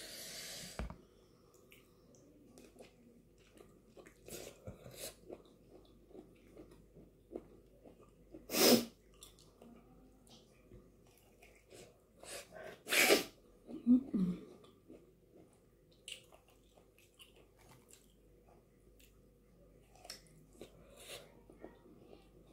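Mouth sounds of eating ripe mango: soft chewing and sucking on the slices, with two loud, sharp mouth noises about eight and a half and thirteen seconds in, and a short low hum just after the second.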